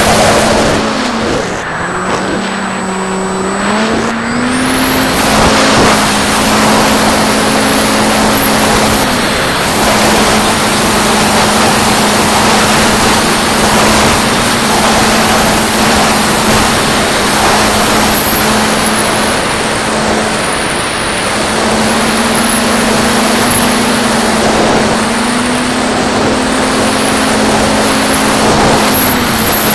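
Electric pusher motor and propeller of a Mako FPV flying wing, heard through its onboard camera in flight. A steady motor hum shifts in pitch with the throttle, dropping briefly about two seconds in and stepping up again a couple of times, under loud wind rush over the airframe and a thin high whine.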